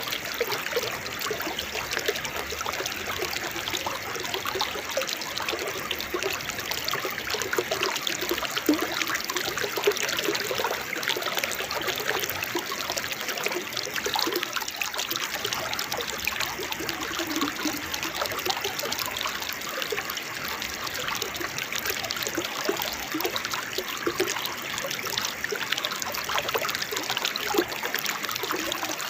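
Small waterfall splashing and trickling steadily, with small bubbling gurgles throughout.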